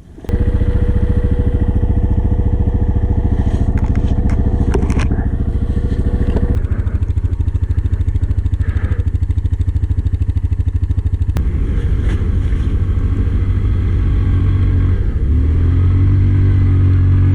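Yamaha Kodiak ATV's single-cylinder engine pulling hard through deep snow with the diff lock engaged, a steady throbbing exhaust. It grows louder and rises near the end.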